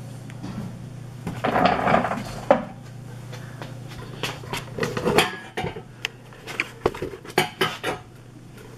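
A Dust Deputy cyclone's lid being lifted off a plastic collection bucket and set down: a scraping rustle about a second and a half in, a sharp knock, then a string of light clicks and clatters, over a steady low hum.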